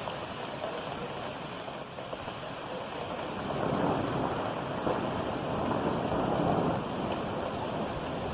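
Rain falling heavily in a summer thunderstorm, a steady hiss that grows louder about halfway through.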